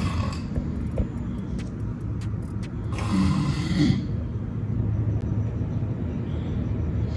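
A sleeping man snoring: one loud snore about three seconds in, over a steady low rumble.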